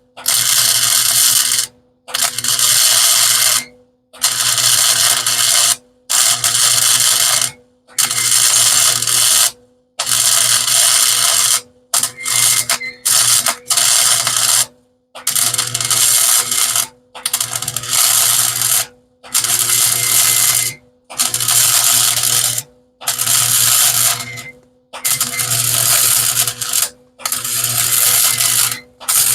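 Welding arc crackling in short stitch-welding bursts on a steel shock mount. There are about fourteen bursts, each about a second and a half long, one every two seconds, with a steady hum from the welder running through the pauses.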